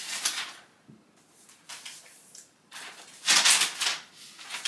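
Rustling of a papery protective wrap as it is unfolded and pulled off a new laptop. It comes in several short bursts, the loudest a little over three seconds in.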